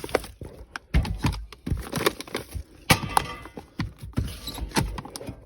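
Cardboard firework cakes being handled and shifted: irregular knocks, taps and rustling, with louder knocks about a second in and near three seconds.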